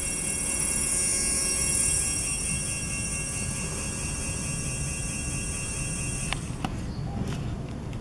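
Brushless direct-drive 24V 250W hub motor spinning unloaded at about 15 km/h, with a steady high electronic whine over a low hum. About six seconds in the whine cuts off as the power drops to zero and the wheel coasts down, followed by a few clicks.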